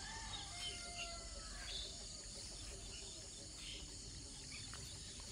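Rural outdoor ambience: a steady chorus of insects, with a few faint, short bird calls, most of them in the first second and a half.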